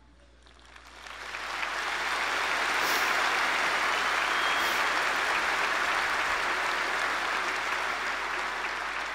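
A large crowd applauding. The applause swells over the first two seconds, holds steady, and begins to die away near the end.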